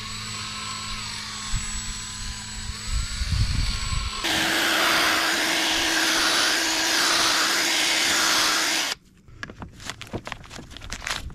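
Ryobi 18V cordless drill spinning a foam buffing pad against a plastic headlight lens coated in rubbing compound. It runs steadily, then gets louder and hissier about four seconds in, with a slow rise and fall as the pad is worked over the lens. It stops abruptly about nine seconds in, followed by soft rustling as a towel wipes the lens.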